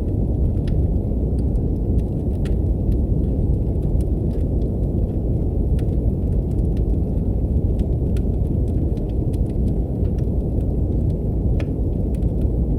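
Steady deep brown noise with the crackle of a wood fire in a fireplace laid over it: sharp, irregular pops and snaps, a few every second or two.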